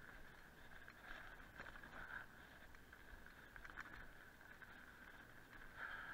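E-mountain bike riding on a dirt singletrack, heard quietly: a steady high whine with scattered light ticks and rattles from the bike on the trail.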